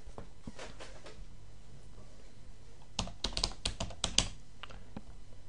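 Typing on a computer keyboard: a few faint clicks near the start, then a quick run of keystrokes about three seconds in.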